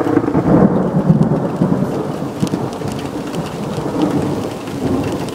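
Thunder from close lightning rumbling and rolling, loudest about a second in, then easing and swelling again near the end, with rain falling throughout.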